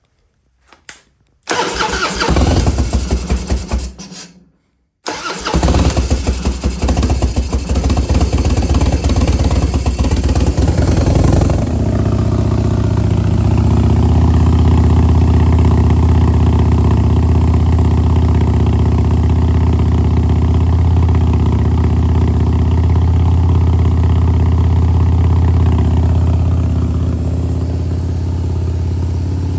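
Cold start of a Harley-Davidson Twin Cam 88 V-twin through a Bassani exhaust: a first brief burst of cranking and firing cuts out, then a second attempt catches about five seconds in and the engine keeps running. It runs rough and uneven at first, then settles into a steadier, deeper idle about halfway through.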